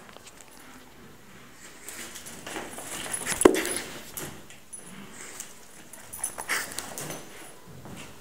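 A dog whining and yipping in short sounds while playing with cats, with a sharp knock about three and a half seconds in.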